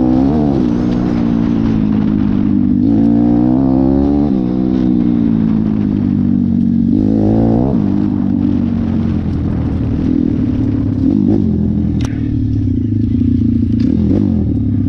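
A 150cc YX pit bike's four-stroke single-cylinder engine running while being ridden, its revs rising and falling in several short throttle surges.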